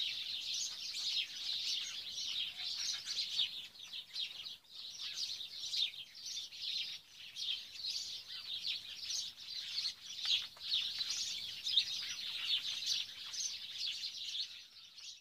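A dense chorus of many small birds chirping at once, a continuous twittering that thins out at the very end.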